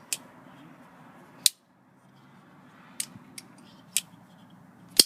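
Cold Steel Recon 1 folding knife's blade spine struck hard against wood in a spine-whack test of its Tri-Ad lock: five sharp knocks about a second apart, the last the loudest.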